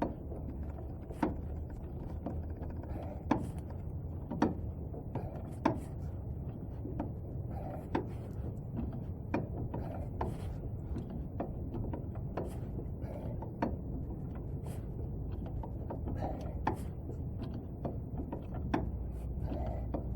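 Irregular metallic clicks and knocks from hand work on a car's front steering knuckle and its stiff ball joints, over a steady low hum.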